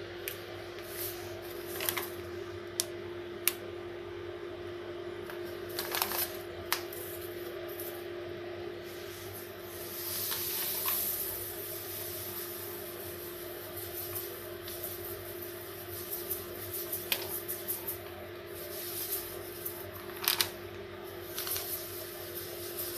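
Dry semolina pouring from a plastic packet into a stainless steel bowl: a soft hiss of falling grains, swelling about ten seconds in, with sharp crinkles and clicks from the packet being handled. A steady low hum runs underneath.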